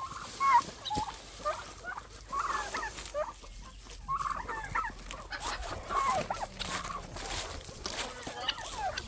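Farmyard poultry calling: a mixed flock of chickens and turkeys giving many short, separate calls one after another.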